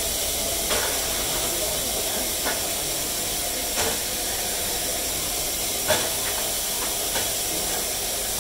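Coal-fired steam locomotive standing in steam, with a steady hiss of escaping steam and a few short metallic knocks from the cab.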